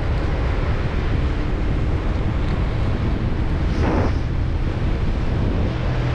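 Wind buffeting the microphone over the steady low hum of a moving vehicle, with one short louder burst about four seconds in.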